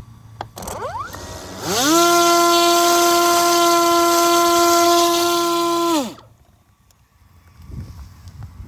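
Electric propeller motor of a Parrot Disco drone spinning up quickly to a steady, high-pitched whine with a hiss, holding it for about four seconds, then winding down and stopping. A brief, fainter rising whine comes about a second before it.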